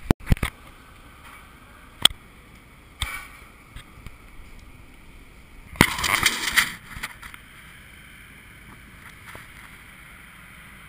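Knocks and rattles of a baby stroller rolling along a sidewalk, heard through a camera mounted on it. A cluster of sharp knocks at the start, single knocks about two and three seconds in, and a louder scraping rustle lasting about a second around six seconds in, over a steady low street noise.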